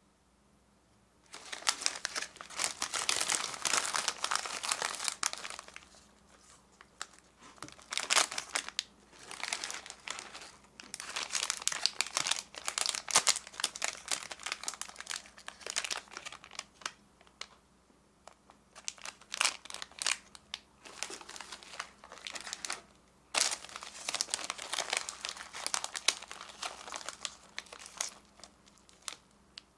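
Plastic and foil snack wrappers crinkling as they are handled and opened, in repeated bursts of crackling that start about a second in, with brief pauses between them.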